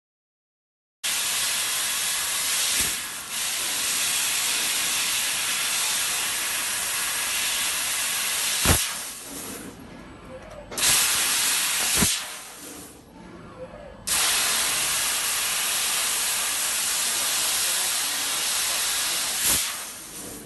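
Laser cutting head blowing assist gas onto a metal tube as it cuts: a loud steady hiss that starts about a second in, breaks off twice in the second half with a sharp click at the changes, and falls away near the end.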